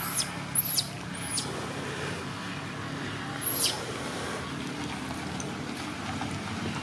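Baby macaque giving four short, high-pitched distress squeals that fall in pitch: three in quick succession in the first second and a half, and one more about three and a half seconds in. A steady low rumble runs underneath.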